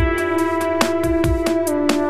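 Electronic background music: a sliding synth melody over a steady kick drum and ticking hi-hats.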